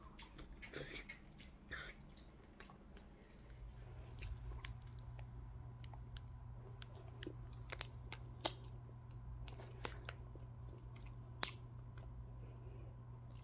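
Quiet close-up eating sounds: chewing, with scattered sharp little clicks, and a low steady hum that sets in about three seconds in.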